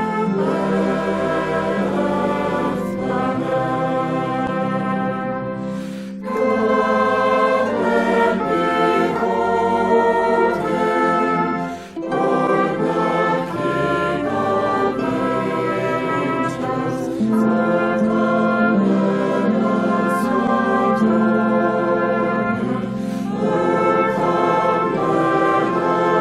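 Choir singing a Christmas carol with brass and orchestral accompaniment, with short breaks between phrases about six and twelve seconds in.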